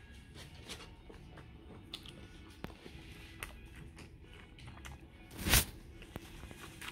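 Someone chewing a mouthful of steak, with small clicks and taps of a metal fork. About five and a half seconds in comes a short, loud rustle as a paper napkin is wiped across the mouth.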